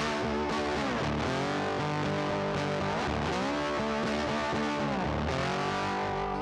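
Background music: distorted electric guitar with bass, the guitar sliding and bending between notes.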